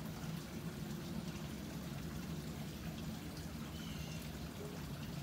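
Steady background hum with an even hiss underneath.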